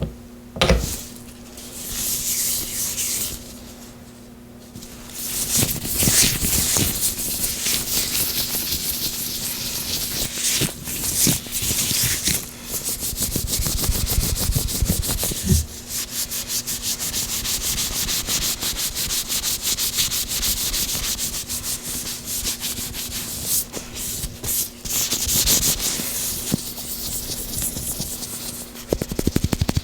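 Gloved hands coated in oil rubbing close to the microphone: continuous slick rubbing with many rapid tiny clicks, quieter for a few seconds near the start.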